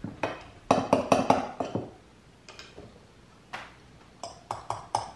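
Spoons clinking and scraping against glass canisters while dry baking ingredients are measured out: a quick run of sharp, lightly ringing taps in the first two seconds, then a few separate taps near the end.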